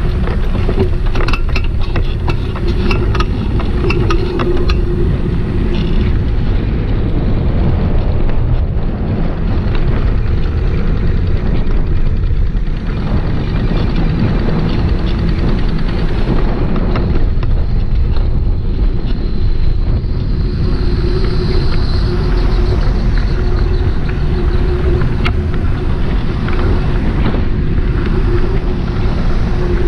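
Wind rushing over the microphone of a camera riding on a moving bicycle. A steady low hum runs under it, and there is a spell of rapid rattling clicks in the first several seconds.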